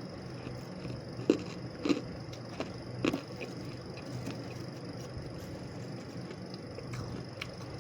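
Freezer frost being bitten and chewed: three or four sharp, crisp crunches in the first half, then only faint clicks, over a steady low hum.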